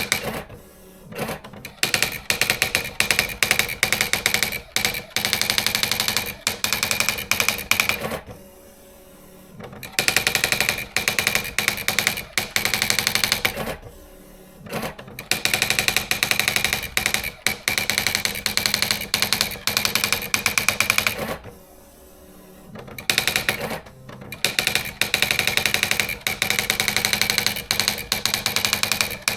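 Olivetti Praxis 100 electronic typewriter typing in long runs of rapid key strikes, pausing briefly three times.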